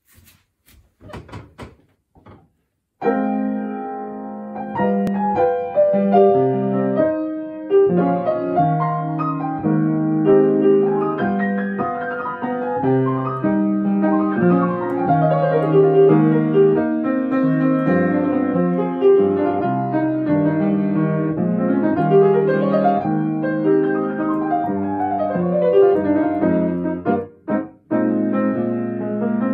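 Grand piano played with both hands: a lively, full-textured arrangement with a melody over a moving bass. It starts about three seconds in after a few soft knocks, and breaks off briefly near the end before going on.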